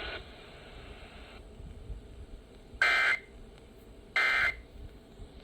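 EAS end-of-message data bursts: two short, loud, buzzy digital bursts about a second and a half apart, following radio static that cuts out about a second and a half in.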